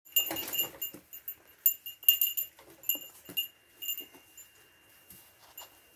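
A small bell jingling in quick, irregular shakes, with a few soft knocks among them. Near the end one ring hangs on and slowly dies away.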